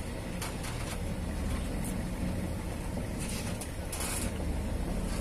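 Steady low rumble of the watermelon lorry's engine running, with a few short rattles and scrapes on top, the longest about three and four seconds in.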